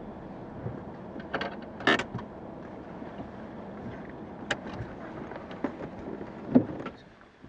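Steady rumble of a car heard from inside the cabin, with a few short knocks and clicks, the loudest about two seconds in and shortly before the end. The rumble fades away near the end.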